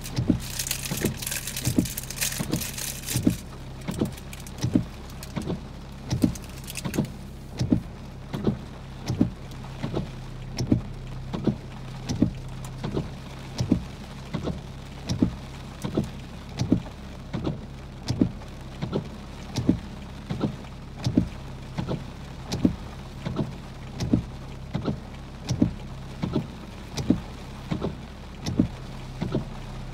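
Inside a stopped car with the engine idling as a steady low hum, the indicator flasher clicking evenly about once a second. A rush of rain hiss is heard in the first three seconds.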